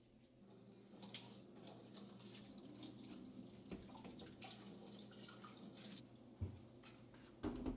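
A water tap running into a sink for about five and a half seconds, then turned off. Two dull thumps follow near the end.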